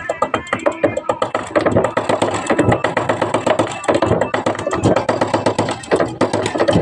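Background music with a fast, steady beat and a voice singing over it.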